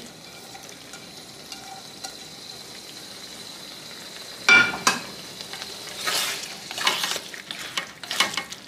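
Beef in dark soy sauce sizzling steadily in a pan, then a loud metal clank about halfway through and several scraping strokes, about one a second, as a utensil stirs the meat.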